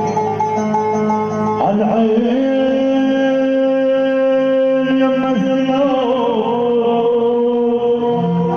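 Loud amplified Middle Eastern wedding music, a melody of long held notes over a steady accompaniment.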